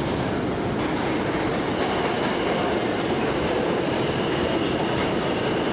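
New York City subway train moving past the platform: a steady, loud rumble of steel wheels on the rails. A faint high wheel squeal joins in about two seconds in.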